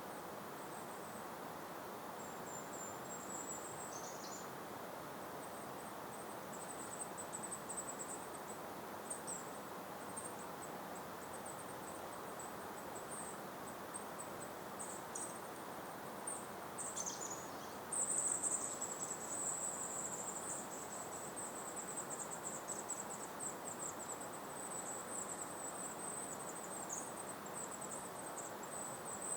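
A high-pitched buzzy trilling from a small creature in the meadow, broken into short bursts at first, then nearly continuous and louder from about two-thirds of the way through. Under it runs a soft, steady breeze hiss.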